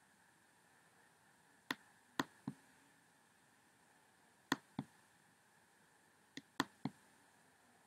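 Computer mouse button clicking: eight sharp clicks in short groups of two or three, a few seconds apart, over a faint steady hiss.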